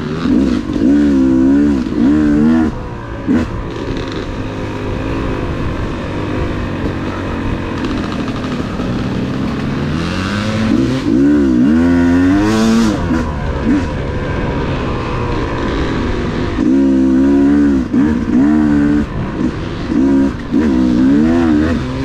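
Yamaha YZ250 two-stroke dirt bike engine heard from the rider's seat, revving up and down in bursts of throttle on a trail ride, with steadier stretches between. Pitch climbs in one long rise around the middle.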